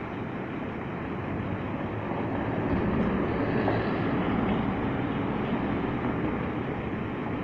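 Street traffic at a city intersection. A city bus passes close by, its engine rumble swelling to a peak around the middle and then fading as it pulls away, with cars running behind it.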